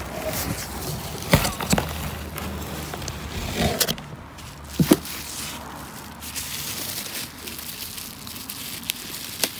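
Cardboard box and bubble wrap being handled as a wrapped motorcycle muffler is unpacked: irregular rustling and crinkling, with a few sharper knocks in the first half.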